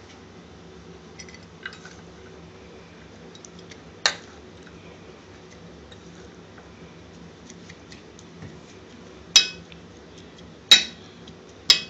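A spoon clinking sharply against a ceramic plate and a steel bowl as salad is served onto the plate. There are a few faint taps, a louder clink about four seconds in and three more near the end, over a low steady kitchen hum.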